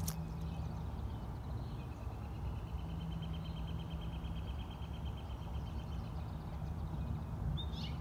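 A small songbird's fast, even trill held at one pitch for about four seconds, with a short chirp near the end, over a steady low rumble of background noise.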